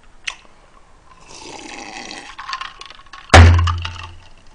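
Drinking iced soda from a glass, then a sudden heavy thunk about three seconds in as the glass is set down on the table, dying away over about a second.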